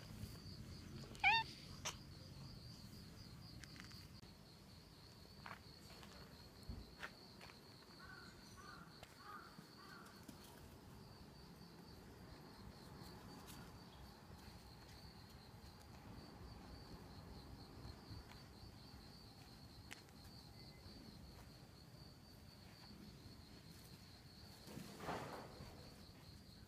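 Steady, pulsing high-pitched insect trill running throughout, over quiet outdoor background. A short sharp call is the loudest moment about a second in, and a brief louder rush comes near the end.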